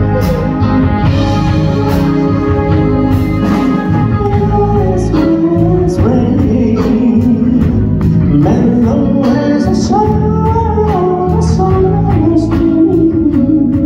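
Live soul ballad played by a band with a male lead vocalist singing over it, amplified through the hall's sound system.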